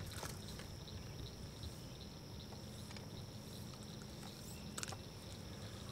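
Quiet outdoor ambience: a steady high insect drone with a faint pulse over a low steady hum, with a couple of faint clicks, one just after the start and one about five seconds in.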